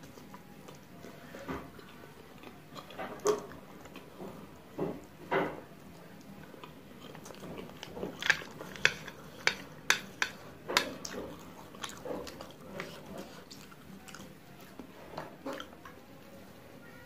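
A person eating instant fried noodles: wet chewing and slurping, with a burst of sharp clicks a little after halfway through.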